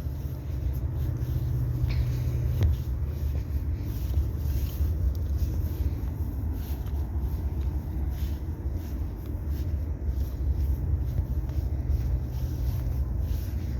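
Low, steady outdoor rumble with wind on the microphone, and a couple of faint knocks about two seconds in.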